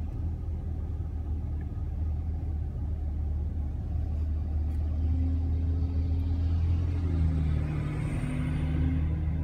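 Mack garbage truck's diesel engine running as the truck drives slowly past close alongside, heard from inside a car over a steady low rumble. The engine note grows from about halfway through, and a rising hiss comes in near the end as the truck's body goes by.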